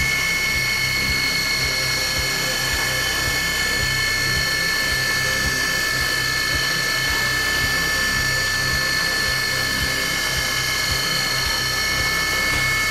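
ProtoTrak DPM3 CNC bed mill running an engraving program: a steady whine of several fixed high tones from the spindle and drives, with low irregular knocks underneath.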